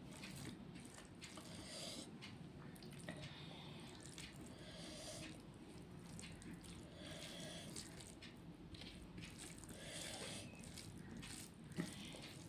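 Faint, wet eating sounds of rice and curry being chewed and squished, coming every second or two, with a sharp click near the end.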